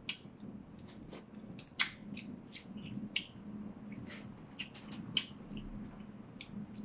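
Quiet eating sounds: scattered soft clicks and smacks of chewing cucumber kimchi and handling wooden chopsticks, a few of them sharper, over a faint steady hum.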